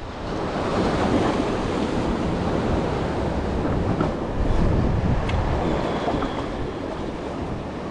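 Wind buffeting the microphone over the wash of waves.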